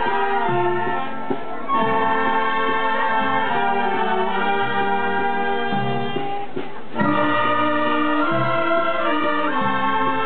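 Marching wind band playing a march: flutes, clarinets, saxophones and brass in full harmony. The sound thins out briefly about six and a half seconds in, then the whole band comes back in.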